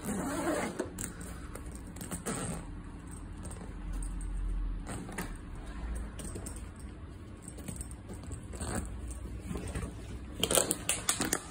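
Rummaging by hand in a fabric tool bag. A zip is pulled open at the start, then come scattered clicks, scrapes and rattles of items being moved, with a quick run of clicks and rustles near the end.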